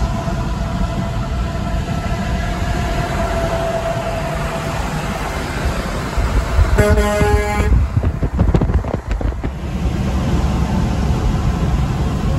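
Dual Hadley H02001FP air horns on a Freightliner CL120 semi truck give one blast of about a second, a little over halfway through, over steady highway road noise.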